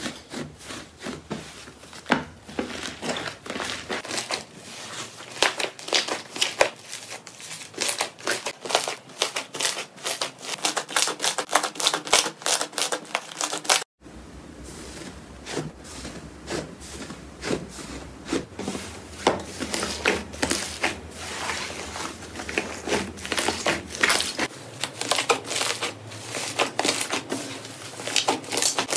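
Iceberg slime being pressed and kneaded by hand, its dried crust crackling and crunching in a dense run of tiny clicks. The sound cuts out for a moment about halfway through, then carries on.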